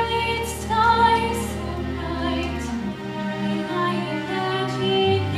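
Music: a woman singing with keyboard accompaniment.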